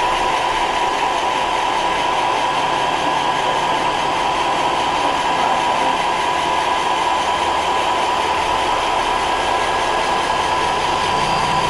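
Roomba robot vacuum running: a steady whine over an even hiss of suction and brushes.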